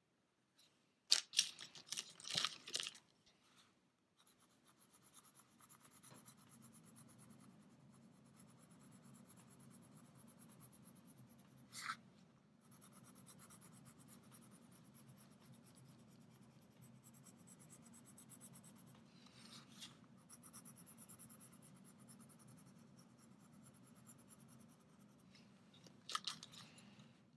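Coloured pencil scratching across shrink plastic in short bursts of strokes, the loudest about a second in and again near the end, over a faint low steady hum.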